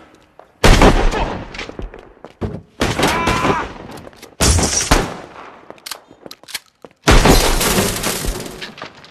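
About five gunshots, a second or two apart, each a sudden crack that rings off over about a second.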